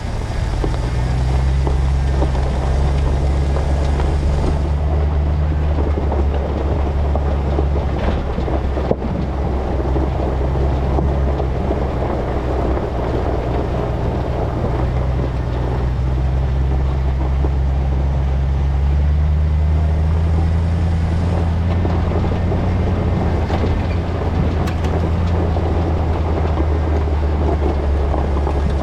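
A GMT800 truck's engine running at low, steady revs while driving through a wash, under a continuous rumble of tyres and suspension over rough ground. The engine pitch rises a little about two-thirds of the way through, and a single knock comes about nine seconds in.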